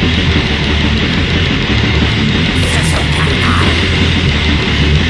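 Grindcore band playing at full volume: heavily distorted guitar over drums and bass, dense and unbroken.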